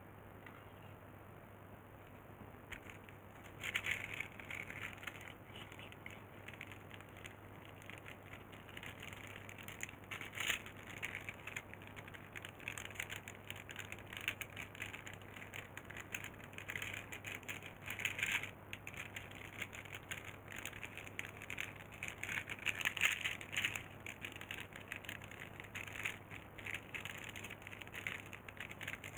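Irregular crackling and rustling of something being handled close to the microphone, busier after the first few seconds, over a faint steady low hum.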